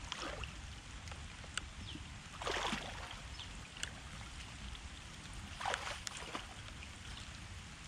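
Legs wading through shallow floodwater among grass: three swishing splashes, about two and a half to three seconds apart, over a steady low rumble with scattered small ticks.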